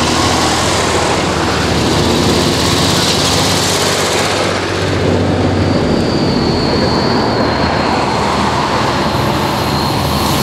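Vintage tractor engine running as the tractor drives past close by, its low engine note dropping away about four seconds in, leaving the drone of more distant tractors.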